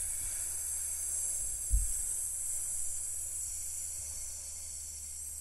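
A woman hissing like a snake through bared teeth in one long, slow exhale, the out-breath of a snake-breathing calming exercise; the hiss fades gradually toward the end. A brief low bump about two seconds in.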